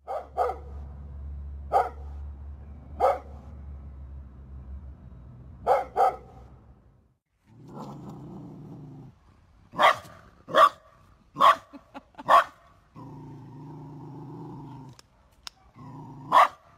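Two leashed dogs barking in turn: the first gives about five sharp single barks, then the second growls low between several louder barks.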